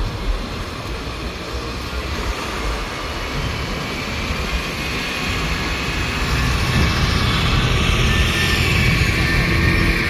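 Heavy diesel dump-truck engines running as a loaded Volvo A40G articulated hauler moves over sand. The engine noise gets louder over the last few seconds.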